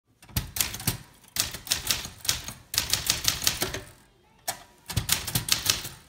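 Typewriter being typed on: keys striking in quick irregular runs of sharp clacks, with brief pauses between the runs.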